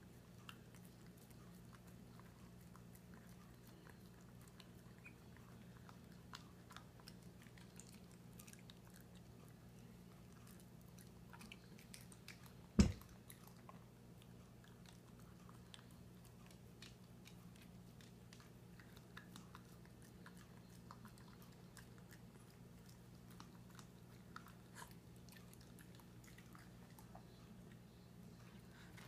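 Dachshund eating soft dog food from a plastic slow-feeder bowl: faint, scattered chewing and licking clicks, with one sharp loud knock about halfway through.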